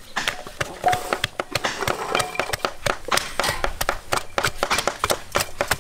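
Two wooden pestles pounding chilies and garlic in a clay mortar and a wooden mortar, giving a quick, uneven run of knocks as the strokes of the two overlap.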